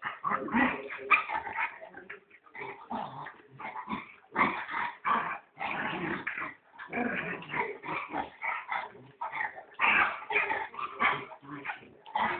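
A small puppy and a larger dog play-fighting, with a near-continuous run of short yips and growls in quick, irregular bursts.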